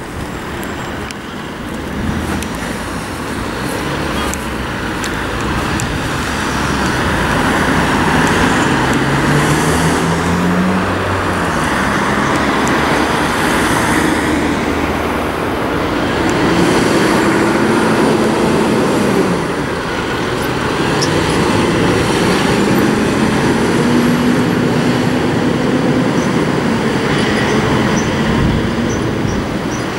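Road traffic noise with a fire engine's diesel engine working as it moves off, its pitch rising about ten seconds in and holding steadier later on.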